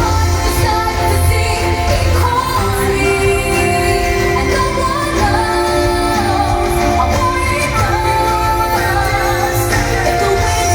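Show soundtrack music with singing over a steady bass.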